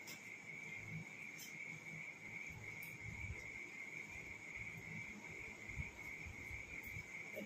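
Faint eating sounds: hands working rice on steel plates, with a few light clinks as a steel bowl of curry is tipped onto a plate, under a steady high-pitched trill.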